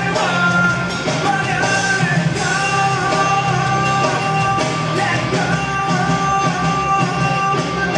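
Loud music with singing, playing without a break.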